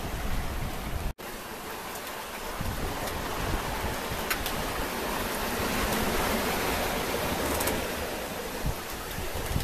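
Steady rush of sea water and wind past a sailing yacht under way at about six knots. Wind buffets the microphone at first, and the sound cuts out for an instant about a second in.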